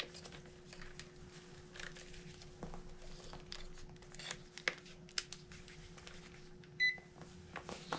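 Scattered light clicks and handling noises over a steady faint hum. A single short electronic beep sounds near the end.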